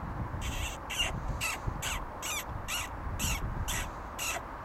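An animal calling in a fast, even series of short harsh calls, about two a second, each falling in pitch.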